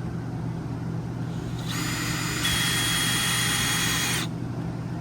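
Power drill driving a screw into an RV roof vent cap, running for about two and a half seconds and speeding up partway through before stopping; the screw is only being set partway so all of them can be tightened evenly. A steady low hum runs underneath.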